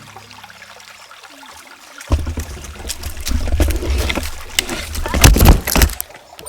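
Camera microphone being knocked and jostled: loud rumbling, rustling handling noise with bumps, loudest near the end before it stops suddenly.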